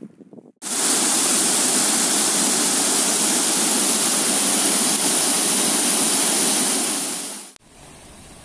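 River rapids rushing over rocks: a loud, steady rush of white water that starts abruptly just after the start and cuts off suddenly about a second before the end, leaving a much fainter steady rush.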